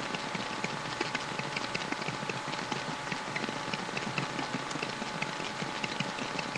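Hot hair crimping iron clamped on a section of hair, giving a steady, irregular crackle and ticking like sizzling, over a faint steady hum.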